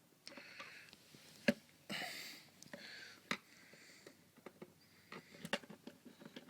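Light, scattered clicks and taps of small hard objects being handled, three of them sharper, with a few soft sniffs or breaths between.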